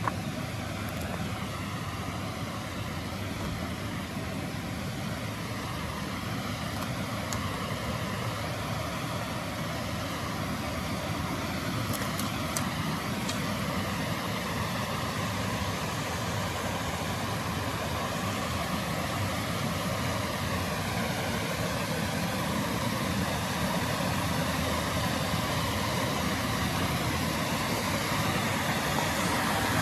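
Mountain creek water rushing over rock ledges in a small cascade, a steady dense rush that grows gradually louder as the cascade is approached.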